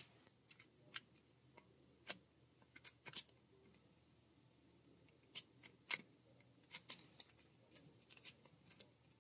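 Small, sharp plastic clicks and taps at irregular intervals as fingers handle a yellow SRS airbag harness connector, opening its locking tab and pulling out the terminal pins. Some come in quick pairs or clusters.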